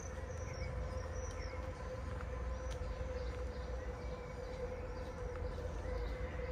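Small birds chirping in short high notes, repeatedly, over a steady droning hum and a low rumble.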